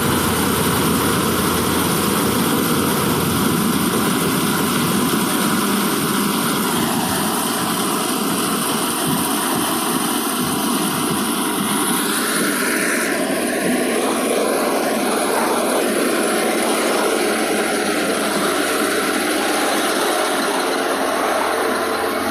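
Corn thresher running steadily at a loud, even level: continuous machine noise from the engine and threshing drum.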